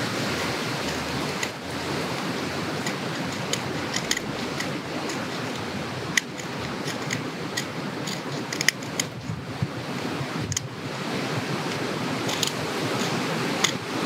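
A knife blade shaving and scraping a stick of resin-rich pine fatwood into curls and fine powder for fire starter: dry scraping strokes with small clicks here and there, over a steady rushing background noise.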